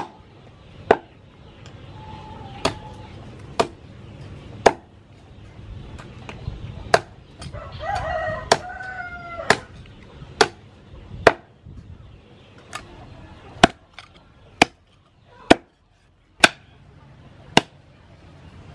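Heavy cleaver chopping through oxtail on a round wooden chopping block, sharp chops about once a second. A rooster crows once about halfway through.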